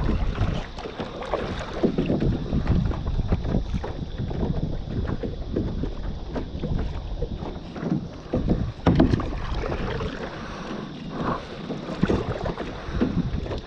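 Water splashing and lapping around a kayak, with irregular small splashes and wind buffeting the microphone.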